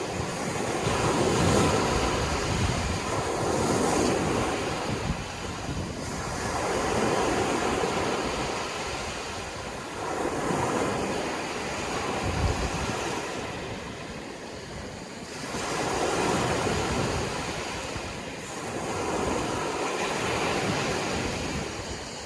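Sea waves washing onto the shore, the surf swelling and falling back about every three seconds.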